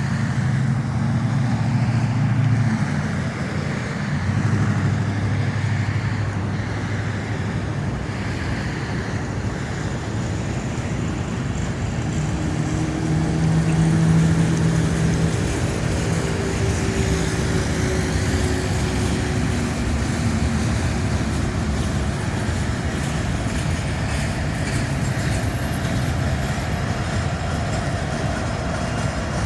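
Diesel locomotive engines running with a steady low drone as a train rolls by, the drone's pitch shifting a few times and giving way to a dense rumble of the moving train.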